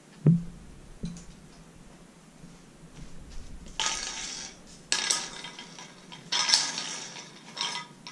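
Glass light bulbs and their fittings being handled: two knocks about a second apart, then several short bouts of clinking and rattling.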